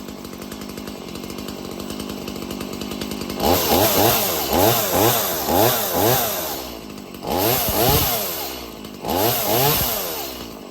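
Stihl MS170 two-stroke chainsaw idling, then revved up and down in quick repeated throttle blips, twice more with longer revs near the end, running its newly fitted chain.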